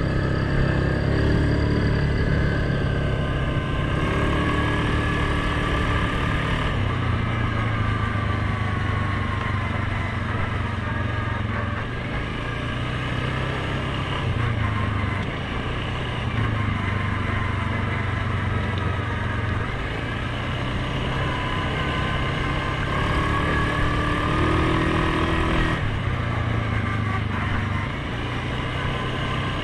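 Suzuki KingQuad 750 ATV's single-cylinder engine running while riding, its note rising and falling several times as the throttle changes, with a higher whine gliding over it.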